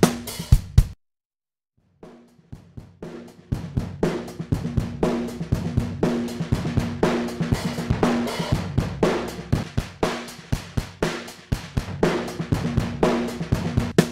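A drum-kit loop with kick, snare, hi-hat and cymbals, played back through a DIY Tube Screamer overdrive pedal. The loop cuts out about a second in, returns faintly, then grows louder a few seconds in as the pedal's knobs are turned.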